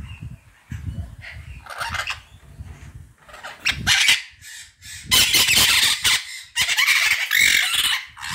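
White-fronted Amazon parrot giving a series of loud, harsh squawks, each about a second long, starting a little before the middle.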